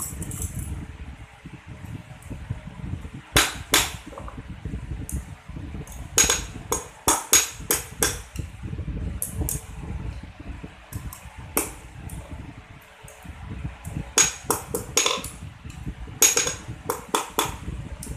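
Small hammer striking steel surgical dissecting scissors on a steel anvil: sharp ringing metallic clinks in quick groups of a few blows, with pauses between the groups, over a low steady rumble.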